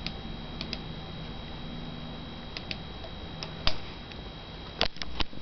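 Scattered light clicks from someone operating the computer, several in quick pairs, with a louder run of clicks near the end. Under them a faint low hum fades out about two-thirds of the way through.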